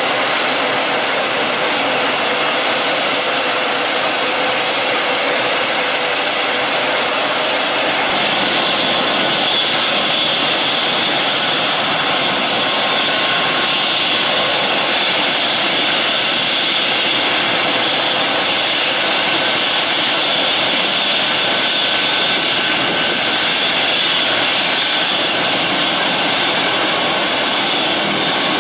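Mi-8 helicopter's twin turboshaft engines running on the ground with the rotors turning: a loud, steady turbine rush, with a high whine that comes in about eight seconds in and holds.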